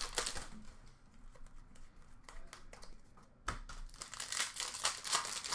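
Foil wrapper of an Upper Deck hockey card pack crinkling and tearing as it is opened and handled by hand. There is a burst of crinkling at the start, a quieter lull, then a denser run of crinkling from about three and a half seconds in.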